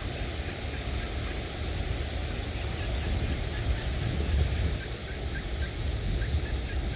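Mallard duck family on the water calling softly: a quick run of short, evenly spaced calls, about three a second, clearest near the end. Under them is a steady low rumble of wind on the microphone and the shallow stream running.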